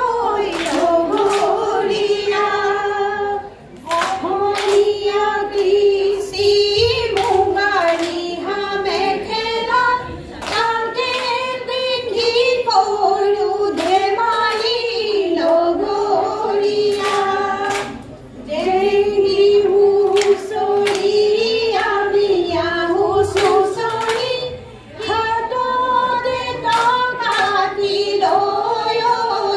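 Women singing a Jeng Bihu folk song, several voices together through microphones, with sharp claps keeping time and short breaks between phrases.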